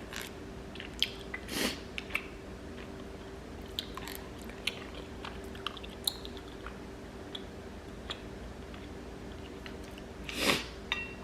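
Close-miked mouth sounds of a person chewing food: soft wet clicks and smacks, with a few short louder rushes of air near the start and near the end.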